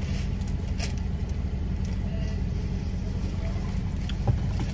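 Steady low rumble of a car's engine and body heard from inside the cabin, with a few faint clicks.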